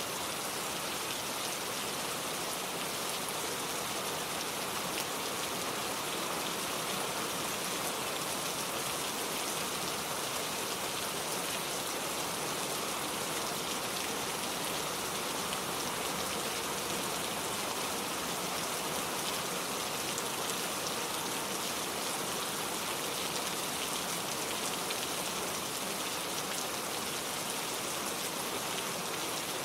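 Heavy rain falling steadily, a dense, even patter of drops hitting surfaces.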